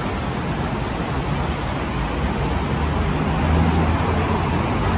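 Steady road traffic on a busy flyover and the streets below: a continuous hum of passing cars, with a low engine rumble swelling in the second half.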